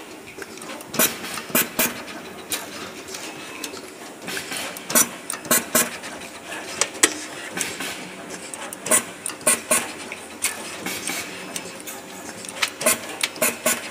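Automatic wire cutting, stripping and tinning machine running: a steady mechanical hum under groups of sharp clacks that recur every few seconds as it works through its cycle.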